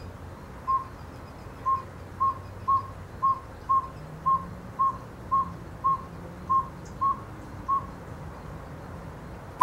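Recorded call of a northern saw-whet owl played through a phone speaker: a long series of short, evenly pitched single toots, about two a second.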